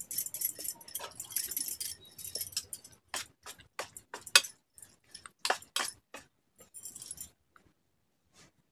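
Metal bangles jingling on the wrists as batter is mixed by hand in a steel bowl. This is followed by a run of sharp clinks of a steel spoon against the bowl, the loudest about four seconds in.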